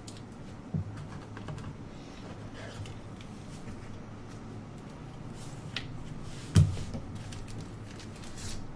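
Trading cards and packs being handled on a table, with a soft knock about a second in and a sharper thump about two-thirds of the way through, over a low steady hum.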